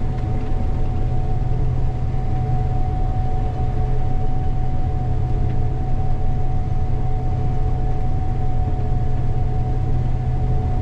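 Gleaner combine running steadily while harvesting soybeans, heard from inside the cab: a constant low drone with a thin steady whine above it.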